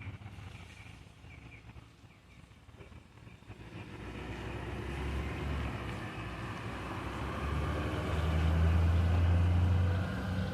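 A motor vehicle passes by, with tyre and road noise over a low engine hum. It grows louder from about four seconds in and is loudest near the end.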